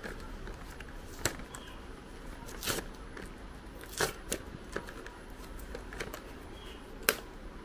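Hands tearing and crinkling the stiff cardboard-and-plastic blister pack of a knife sharpener, a steady rustle broken by a few sharp cracks.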